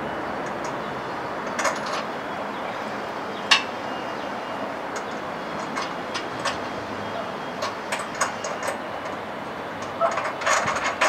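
Scattered metallic clinks and knocks of hand tools and bolts as a steel bumper's mounting bolts are fitted, one louder knock a few seconds in, then a quick run of ratchet-like clicking near the end, over a steady background hiss.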